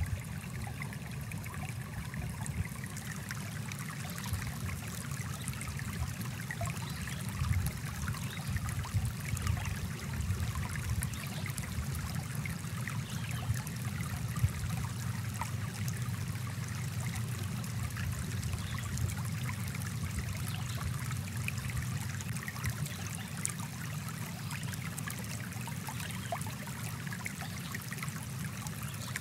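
Small forest stream flowing over rocks: a steady low rush of water with faint scattered ticks of trickling.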